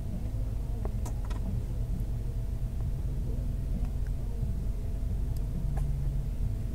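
Steady low rumble of an engine running, with a low hum and a few light clicks about a second in.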